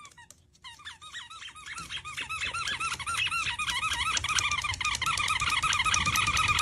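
A rapid run of high, arched squeaks, several a second, from small animals calling, starting faint and building steadily louder and denser until the calls overlap.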